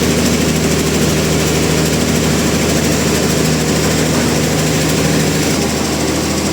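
Sawmill machinery engine running steadily at an even pitch, with no change in load.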